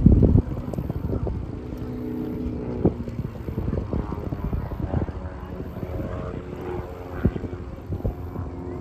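Propeller airplane engine droning steadily, loudest at the start and dropping back about half a second in. Scattered short knocks run through it.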